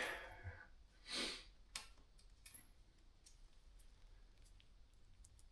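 Faint sounds of a bicycle chain being handled: a short sniff about a second in, then a few light metallic clicks. The rest is quiet room tone.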